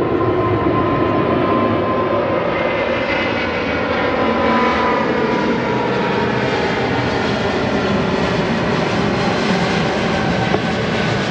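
A Boeing 777-300ER's two GE90-115B turbofan engines running at takeoff thrust as the airliner rolls, lifts off and climbs out. The sound is a loud, steady jet rush with whining tones riding on it.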